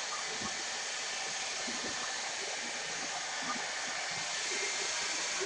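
Handheld hair dryer blowing steadily, cutting off suddenly at the very end.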